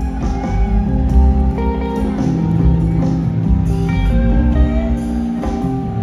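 Live band playing an instrumental passage: acoustic and electric guitars over bass and drums.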